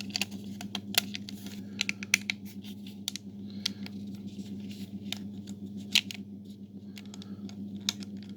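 Hard plastic model-kit parts clicking, tapping and scraping against each other as they are handled and pressed together for a test fit, over a steady low hum.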